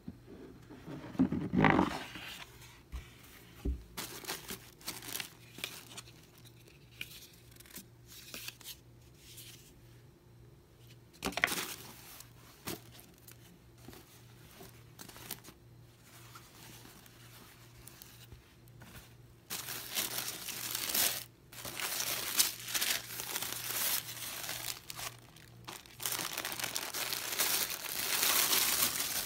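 Paper and plastic packaging crinkling and rustling as a shoe box is unpacked by hand, with a louder scrape and bump of the box about two seconds in. The crinkling of tissue paper and plastic wrap turns loud and almost continuous for the last ten seconds.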